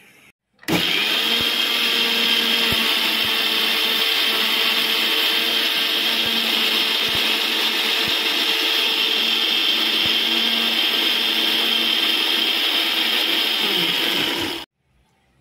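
Electric mixer grinder (mixie) running steadily, wet-grinding grated coconut with cumin seeds and green chillies into a paste. It switches on about half a second in and cuts off just before the end, the motor winding down briefly.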